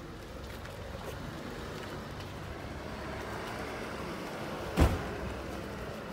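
A motor vehicle running nearby, its noise growing slightly louder through the middle, with one sharp thump near the end.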